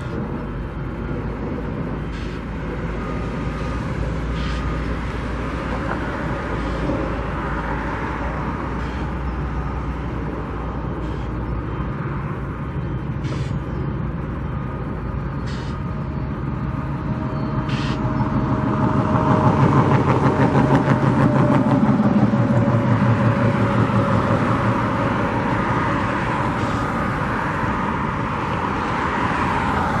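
Steady road traffic, with a large vehicle's engine growing louder about two-thirds of the way through and then fading as it passes. A few faint sharp clicks sound now and then in the first half.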